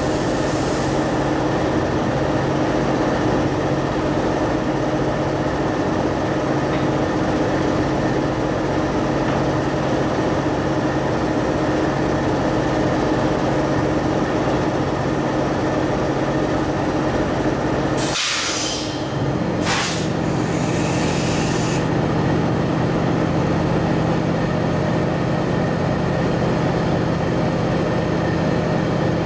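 Diesel locomotives, an MLW MX627 and an ALCo DL532, idling steadily at a standstill. About two-thirds through the engine note shifts slightly, and a few short hisses of air follow.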